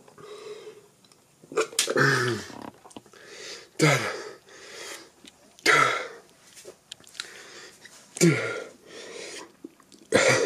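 A man chugging a thick milkshake makes short, sudden vocal outbursts, gasps ending in a falling groan. There are about five of them, roughly two seconds apart.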